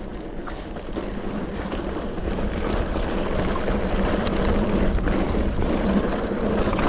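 Mountain bike rolling along a dirt and gravel track: tyre rumble over the rough surface mixed with wind rushing over the camera microphone, getting louder as the bike picks up speed.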